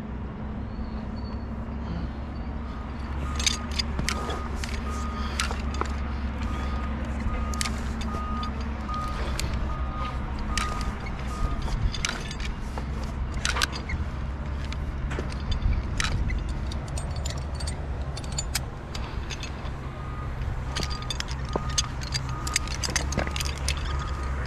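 Electronic beeping, about one and a half short beeps a second, in two spells, over a steady low rumble, with scattered sharp clicks and knocks.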